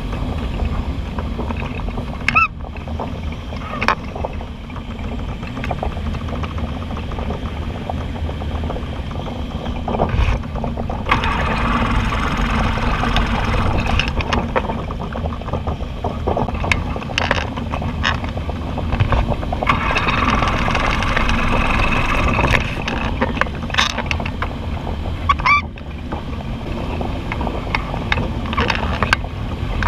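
Steady rush of air streaming past the open cockpit of a Cumulus ultralight motorglider gliding down with its Kawasaki 440 engine shut off, with occasional short knocks of buffeting.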